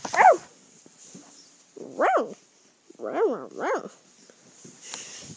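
A small dog yipping: four short high yips, each rising and then falling in pitch, with the last two close together.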